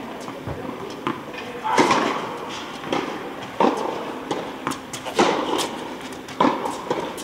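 Tennis rally: balls struck by rackets and bouncing on the court, a sharp knock about every one and a half to two seconds, echoing in a large indoor tennis hall.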